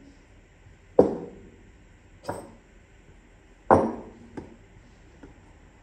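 Metal tools and parts being set down on a steel workbench: two sharp knocks with a short ring, about a second in and past the middle, and a couple of lighter clinks between and after them.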